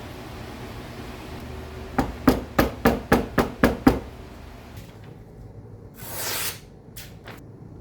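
A hammer strikes metal eight times in quick succession, about four blows a second, over a steady low hum that fades out soon after. A short hiss follows about two seconds later.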